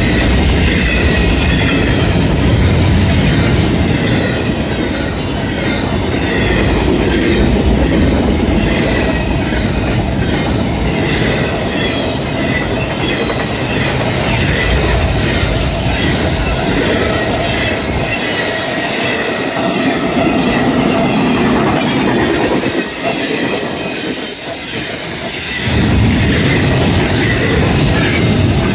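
CSX freight train cars rolling past close by: a steady rumble of steel wheels on rail, with repeated clacking over rail joints and a wavering high-pitched wheel squeal. The low rumble eases for several seconds near the end, then comes back.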